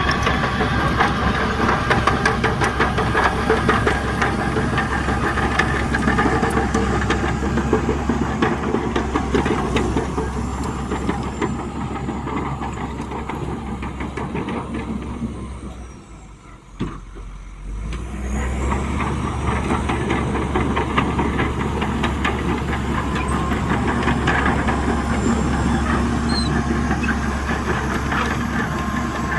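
Heavy diesel engine of earthmoving machinery running steadily with a dense rattle. Just past the middle the sound drops away sharply for about two seconds, then the engine noise returns at the same level.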